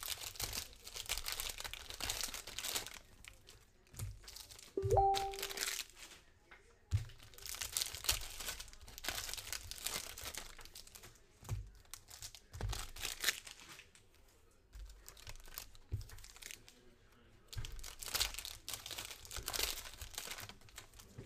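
Foil trading-card pack wrappers being torn open and crinkled by hand, in repeated bursts of rustling with short pauses between them. A short rising tone that settles on a steady note sounds about five seconds in.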